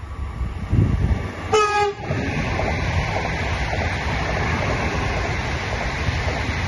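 Alstom ETR104 "Pop" electric multiple unit passing close at speed, with a steady rush and rumble of its cars and wheels on the rails. A single short train horn blast sounds about one and a half seconds in.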